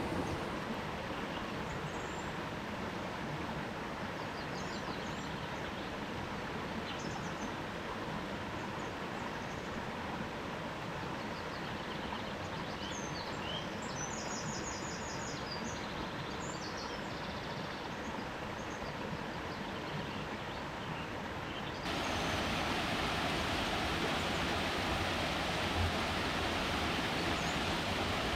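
Steady outdoor ambience, an even hiss with scattered short high chirps. About three-quarters of the way through, the hiss suddenly turns louder and brighter.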